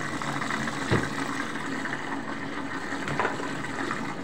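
Alo detergent being poured into the washing machine: a steady pouring hiss, with a light knock about a second in and another just after three seconds.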